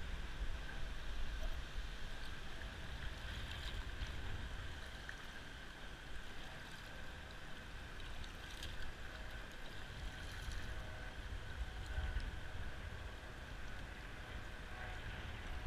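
Water lapping and gurgling against a float tube as it moves through calm harbor water, over a steady low rumble.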